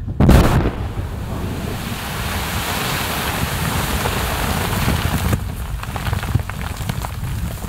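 Dynamite charges, 24 kg in all, detonating under lake ice: one sharp blast just after the start, then a steady rush of water, ice and slush raining back down. About five seconds in the rush thins into scattered patters and ticks of falling debris.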